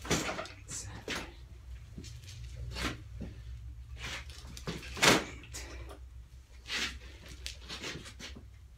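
Sport motorcycle pushed forward and braked hard over and over, the front fork compressing to work the just-cleaned fork seals: about half a dozen knocks and clunks, the loudest about five seconds in, over a steady low hum.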